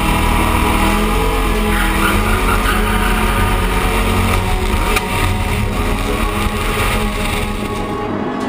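1967 Shelby GT500CR's 427 V8 running at speed, heard from a camera mounted low on the car's side along with wind and road rush. Near the end the high hiss drops away.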